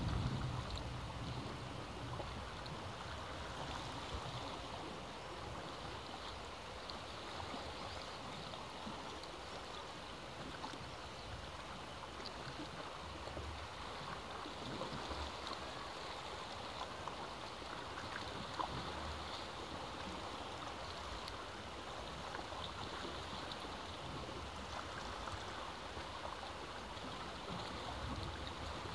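Sea surf washing against the rocks below a cliff: a steady rushing wash of water that swells and eases slowly, with occasional low rumbles.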